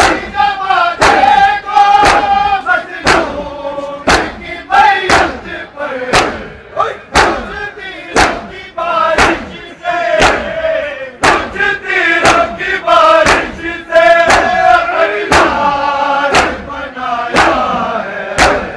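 A crowd of men chanting a noha in unison while beating their chests (matam). The sharp slaps of the strikes land in a steady rhythm of about one a second, some doubled, over the sung lines.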